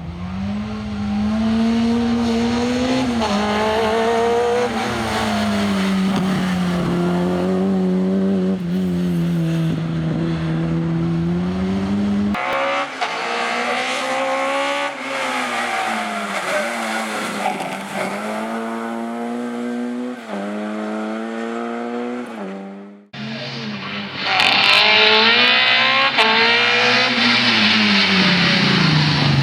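VW Golf Mk1 rally car's engine running hard on a stage, its note rising and falling over and over as it revs up and changes gear. The sound breaks off abruptly twice, about a third and three-quarters of the way through, and is loudest near the end.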